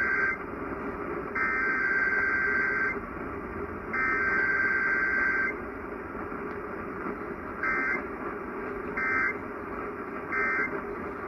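Emergency Alert System SAME digital data tones heard over a radio broadcast. Three long buzzy bursts of the header come about a second apart, then after a pause three short bursts, the end-of-message code, over steady radio hiss.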